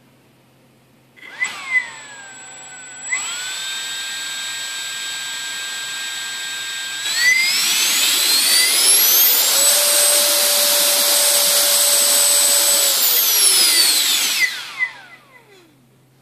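XRP 70mm 14-blade electric ducted fan with a Cyclone Power 2800 kV inrunner motor on a 4S LiPo, run up on the bench: a whine starts about a second in, holds steady at part throttle, rises at about seven seconds to a louder, higher steady whine at full throttle, then falls away as the fan spins down near the end. At full throttle it is drawing about 72 amps, just over 1100 watts, and sounds pretty good.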